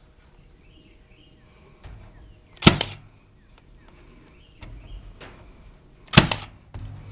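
Cordless finish nailer firing two nails into wood, two sharp cracks about three and a half seconds apart, each with a short low hum just before it.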